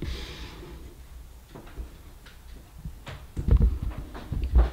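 A few sharp clicks and soft knocks from handling a vape with a fidget spinner fitted on top, as it is stood on a tabletop and the spinner is set turning; the loudest knocks come about three and a half seconds in and again near the end.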